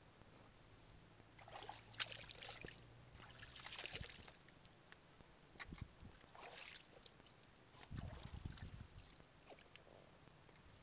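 Soft splashes and sloshes of shallow water being waded through, in a few separate bursts, with some low bumps near the end.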